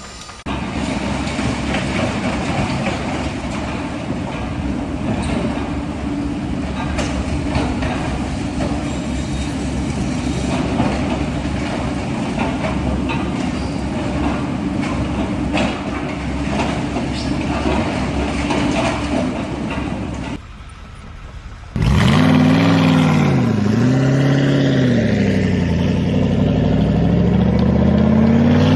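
A heavy vehicle engine runs steadily with scattered knocks and clanks. After a short break, an engine revs, its pitch falling and rising twice and then climbing steadily.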